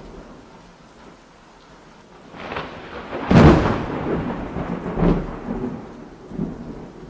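Thunderstorm: rain hiss with rolling thunder that builds about two seconds in, a loud clap a little over three seconds in that rumbles away slowly, and a smaller clap about two seconds later.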